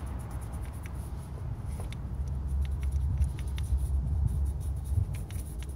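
Toothbrush scrubbing carbon gunk soaked in carb cleaner out of the bore of a VW 1.8T throttle body: faint scratchy brushing with many small scattered clicks, thickest in the second half, over a steady low rumble.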